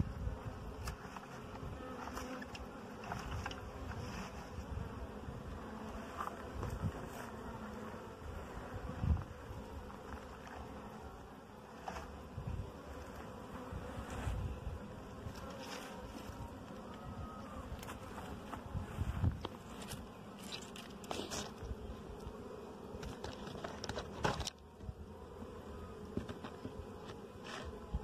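Bees buzzing in a steady hum around a wild hive being robbed of honey, with occasional knocks from gear being handled.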